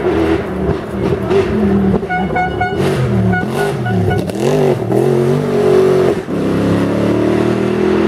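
Rally-raid car engine at full throttle, the revs repeatedly climbing and dropping through gear changes, with a brief lift off the throttle a little after six seconds in. A short pulsing high-pitched tone sounds over it about two to four seconds in.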